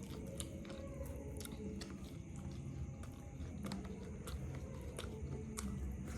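A person eating, biting and chewing food, with scattered sharp clicks through the chewing.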